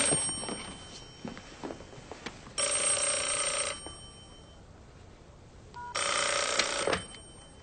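A corded desk telephone ringing: the tail of one ring, then two full rings, each about a second long and about three seconds apart. A few faint knocks sound between the rings.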